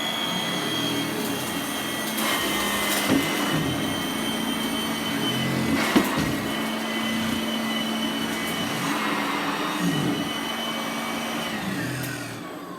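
Sanitaire SC684 commercial upright vacuum cleaner running, with a steady high-pitched motor whine. Near the end it is switched off and the whine falls away as the motor winds down.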